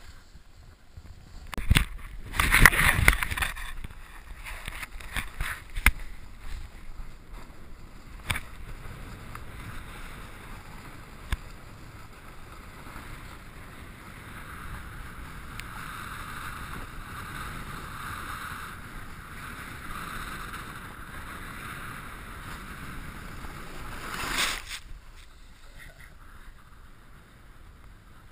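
Snowboard sliding and scraping over packed snow, with wind rushing across the camera microphone. The loudest stretch is a rough scrape a couple of seconds in, with a few sharp knocks after it. The rushing stops fairly suddenly near the end as the board comes to rest.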